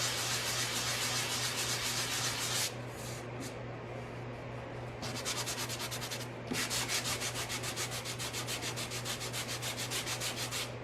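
Coarse-grit sanding block rubbed back and forth over dried wood putty on a wooden drawer, in quick strokes about four a second. The strokes go lighter for a few seconds in the middle, then pick up again.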